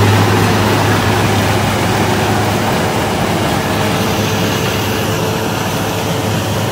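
Kubota DC-70 Plus rice combine harvester running steadily as it harvests, a continuous deep engine hum under a wash of machinery noise, easing off slightly after the first couple of seconds.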